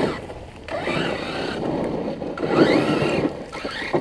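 Radio-controlled car running over dusty ground, its motor revving up and down in three bursts with a rasping, gritty noise.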